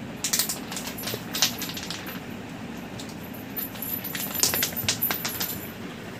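Light clicks and scrapes as a kitten bats and chases a small hard ball across a concrete floor, in two flurries, over a steady low background hum.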